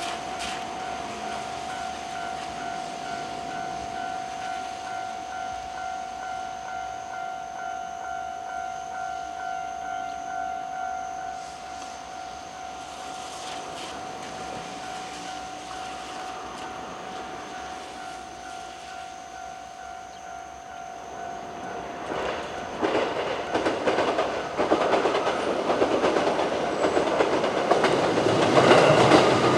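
Level-crossing warning bell ringing in a steady, evenly pulsing repeat. After about twenty seconds a six-car 221 series electric train approaches, and its wheel and rail noise builds and grows louder until it swamps the bell.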